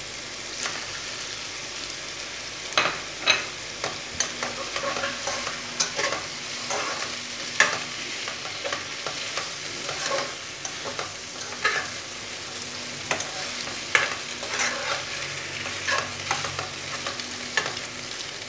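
Glass noodles and cucumber and carrot strips sizzling in a hot wok while a metal spatula stirs and tosses them. Over the steady sizzle come repeated sharp scrapes and taps of the spatula against the pan, starting a few seconds in.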